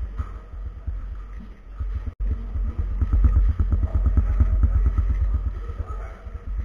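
Rapid, irregular clicking and clacking of a 4x4 speed cube's layers being turned by hand during a solve, with a heavy low rumble under the clicks. The sound cuts out briefly about two seconds in.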